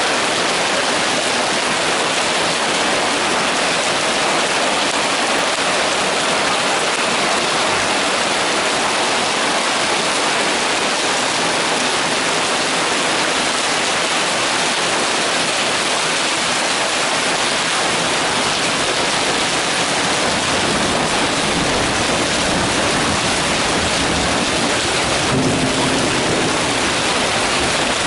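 Heavy rain mixed with hail pouring down steadily, a dense even hiss. A low rumble joins it about two-thirds of the way through.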